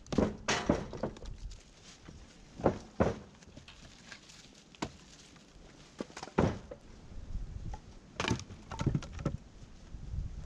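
Split firewood logs being tossed onto a load of wood in a utility trailer: irregular wooden clunks and clatters, a few together at the start and near the end, and single knocks every second or two between.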